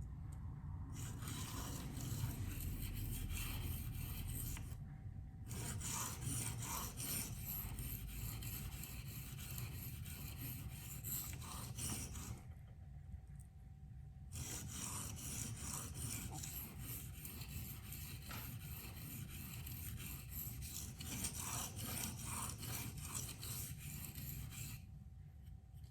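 K390 steel knife blade being stroked back and forth on a coarse 240-grit Venev diamond waterstone, a continuous grinding scrape of repeated strokes. It breaks off briefly twice, about five seconds and thirteen seconds in, before starting again.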